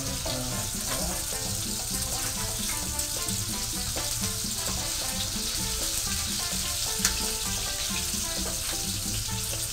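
Kiełbasa sausage frying in a pan, a steady sizzle of hot fat, with one sharp click about seven seconds in.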